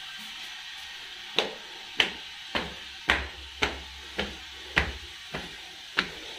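Footsteps on concrete stairs and a landing: sharp, even slaps about two a second, starting after a short pause.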